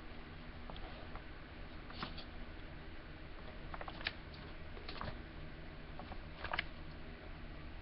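Faint handling noise: a few light clicks and taps, spaced a second or two apart, over a low steady hum.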